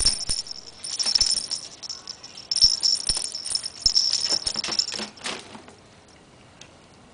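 A grey squirrel shaking and tumbling a pom-pom toy jack with a rattle inside: jingling, rattling in bursts, with a few soft knocks, stopping about five and a half seconds in.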